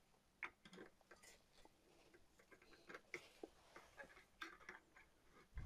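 Faint, irregular small clicks and taps of a metal CPU tower heatsink and its mounting hardware being handled as it is seated onto the motherboard's mounting bracket, with a duller knock near the end.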